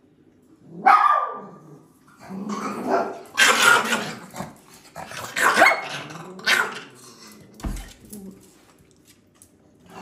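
A dog barking repeatedly in uneven bursts.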